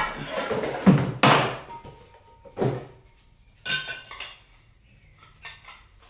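Metal hand tools clattering and clanking as they are handled, in several separate bursts: the loudest about a second in, then a brief metallic ring, and smaller clanks later.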